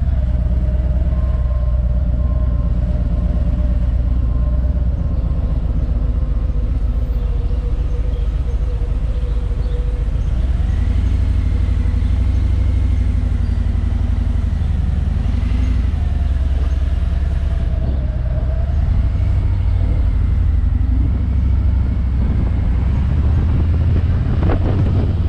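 Touring motorcycle engine running at low speed in slow city traffic, heard from the rider's seat: a steady low engine note that strengthens a little partway through as the throttle opens. A brief sharp sound comes near the end.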